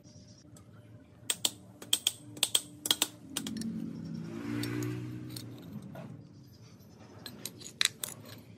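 Steel fork clamp plates and metal fork tubes clinking and tapping together as they are handled and fitted: a quick run of sharp clicks in the first few seconds and again near the end. In the middle, a softer low hum swells and fades for about two seconds.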